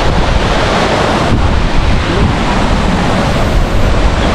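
Waterfall rushing: a loud, steady noise of falling water, with wind buffeting the microphone.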